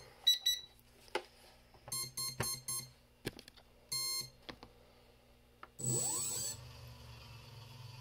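Brushless ESC beeping through the 3D-printed axial flux motor: several short electronic beeps, then about six seconds in the motor starts with a brief loud rush of noise and a rising whine, settling into a steady hum and whine as it spins unmounted.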